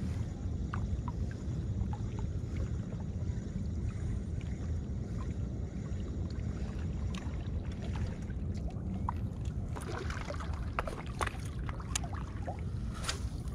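Steady low rumble of wind and water lapping against a rock breakwater. A scatter of small clicks and ticks sets in over the second half and is thickest between about ten and thirteen seconds in.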